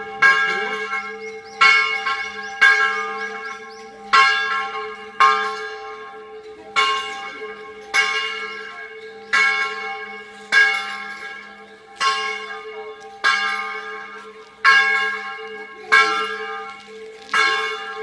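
Catholic church bell tolling, struck about every second and a half. Each strike rings on with a long fading hum before the next.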